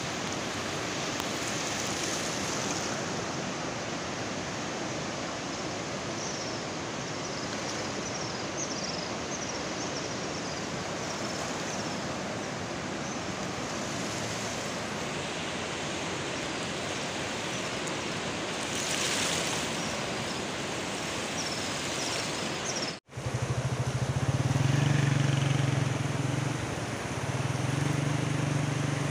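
Muddy floodwater of the swollen Swat River rushing past as a steady noise of water. About three-quarters of the way through the sound drops out for an instant, and afterwards a low droning hum sits over the rushing water.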